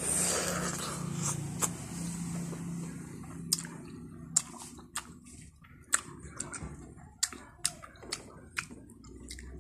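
Biting into a peeled Bangkok santol fruit, then chewing and sucking its soft white pulp. Moist mouth noises give way to a string of sharp wet smacks and clicks through the second half.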